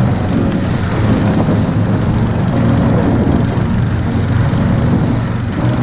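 Engine of a small motorized tracked tow unit (a Russian 'motosobaka') running steadily under load while hauling sleds over snow-covered ice, with a constant rushing noise of wind and travel over it.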